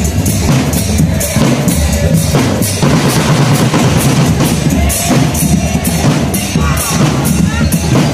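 Marching drumband playing: marching bass drums and snare drums beating a loud, steady marching rhythm.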